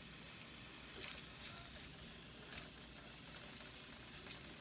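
Faint, steady sizzling of seasoned rib eye pieces frying in hot olive oil in a nonstick pan, with a couple of light clicks.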